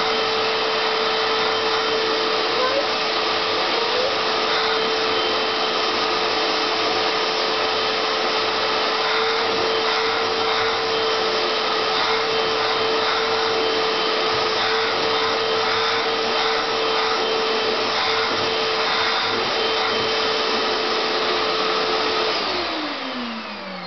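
Household vacuum cleaner running steadily with a constant whine, then switched off near the end, its pitch falling as the motor spins down.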